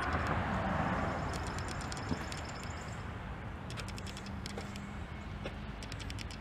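Faint steady background noise with a low hum, and a soft click about two seconds in.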